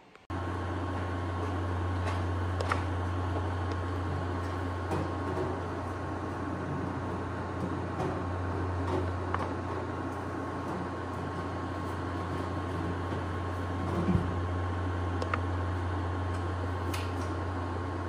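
Steady low mechanical hum with a faint thin whine above it, and a few light clicks plus one louder knock about three-quarters of the way through, from a sheet-metal access panel being handled on a gas unit heater.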